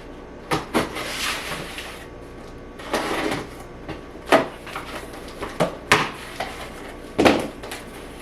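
A box being opened and its packaging handled: a series of short rustles, scrapes and knocks, the sharpest about a second in, around the middle and near the end.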